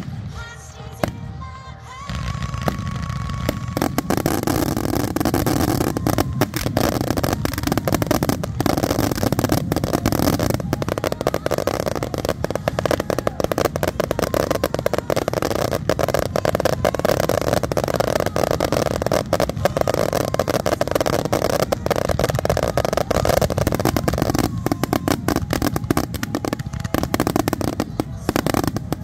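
Fireworks barrage: many aerial shells bursting and crackling in rapid succession. It swells about two seconds in, runs on dense and loud, and thins out near the end.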